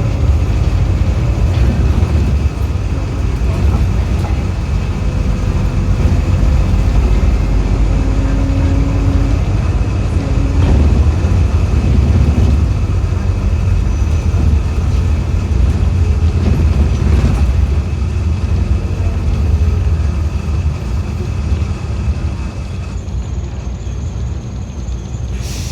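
Interior of an Optare Solo single-deck bus on the move: steady low engine and road rumble with a thin, steady high scraping whine over it, which stops about three seconds before the end.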